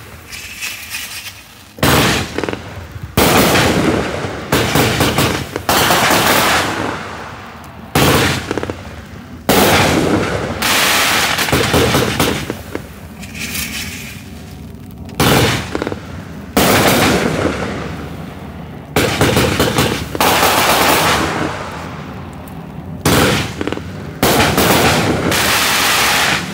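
Black Cat Color Demon 36-shot consumer fireworks cake firing: a string of sharp shots and bursts about every one to two seconds, each followed by a fading hiss.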